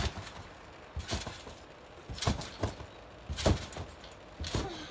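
Thumps of a child landing and rebounding on a netted backyard trampoline mat, about once a second.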